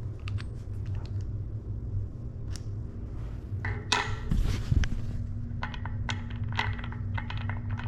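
Small metal bike parts and tools clinking and tapping as they are handled, a scattered run of sharp clicks that grows busier in the second half, over a low rumble, with a steady low hum coming in about halfway through.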